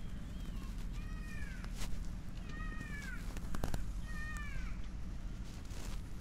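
An animal calling four times, short calls that rise then fall in pitch. The first is faint and the next three come about a second and a half apart. A couple of sharp clicks fall between them.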